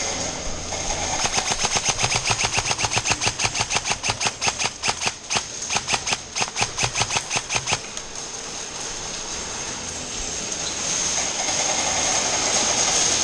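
Airsoft gun firing a rapid, even string of shots, about seven a second, for roughly seven seconds, then stopping.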